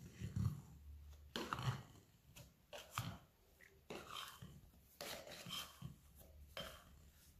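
Faint scraping and a few soft knocks as risen bread dough is worked out of an upturned glass bowl with a plastic spatula and drops onto a floured steel worktop.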